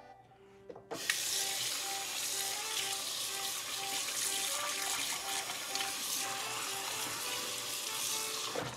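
Kitchen faucet running into a stainless-steel sink, water pouring over and through the gutted fish's belly cavity as it is rinsed. The tap comes on suddenly about a second in and runs steadily.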